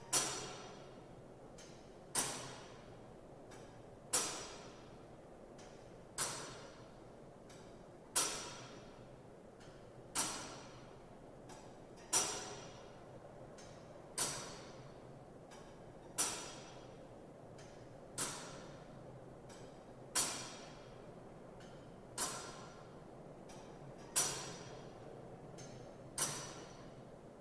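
Big Ben's clock mechanism ticking: one sharp tick about every two seconds, each ringing off briefly, over a steady low hiss.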